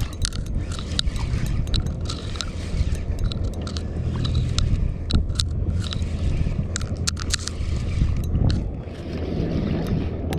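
A fishing reel being cranked to bring up a fish hooked on a jig, with many irregular clicks and scrapes as the angler's sleeve rubs against the chest-mounted camera, over a steady low rumble of wind on the microphone.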